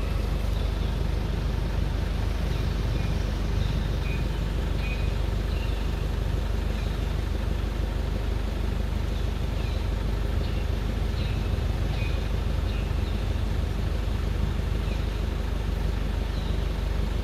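Steady low rumble with an even hiss above it, and short faint high chirps scattered through it now and then.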